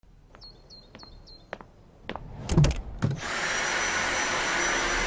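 Dyson V8 Animal cordless stick vacuum: a few short high chirps and clicks, then a brief clatter, then about three seconds in the motor starts and runs steadily with a thin high whine.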